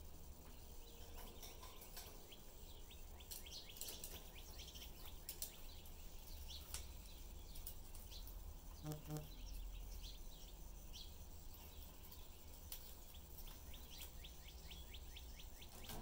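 Pet budgerigars chattering softly with quick high chirps, clicks and short rising whistles, over a low steady hum.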